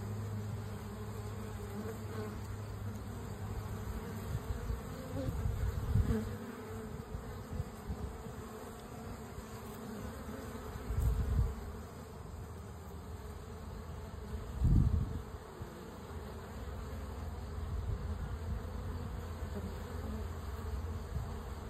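Bees buzzing around the entrance of a honeybee hive, a steady low hum of wingbeats. A few short low thumps break in, the loudest about eleven and fifteen seconds in.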